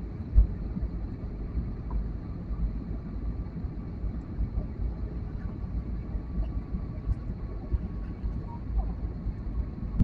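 Jet airliner cabin noise during the descent: the steady low rumble of the engines and rushing airflow, with a faint steady whine above it. A short bump about half a second in.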